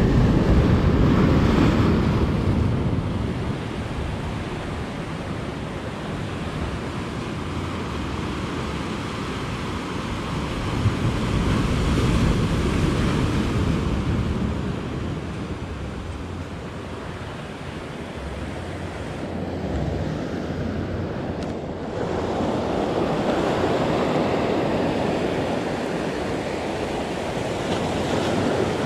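Surf breaking and washing over the boulders of a rocky shoreline, a steady rushing that swells with each set of waves, three surges about ten seconds apart.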